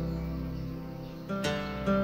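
Background music: an acoustic guitar picking notes that ring and fade, with fresh notes plucked about one and a half seconds in.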